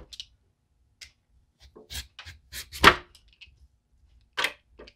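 A julienne peeler scraping shreds off a green papaya in short, irregular strokes with gaps between them, the loudest about three seconds in.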